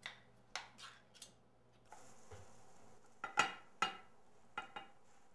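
Spatula scraping and clinking against a frying pan and plates as scrambled eggs are served: a string of sharp clatters, loudest about three and a half seconds in.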